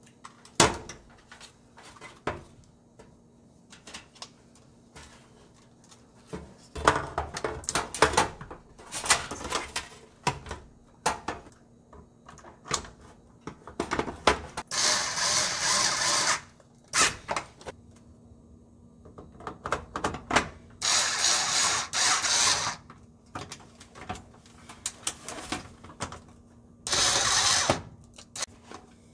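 Small cordless drill-driver running in three short bursts of a second or two each, driving the screws that mount a range's control board. Before and between the bursts come clicks and knocks from handling the board and the sheet-metal panel.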